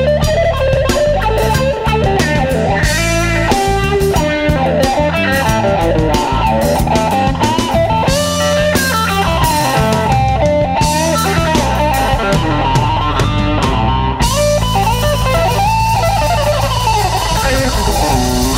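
Electric Chicago blues band playing: a lead electric guitar solos in fast runs with bent notes over bass and drums. A steady cymbal wash comes in about fourteen seconds in.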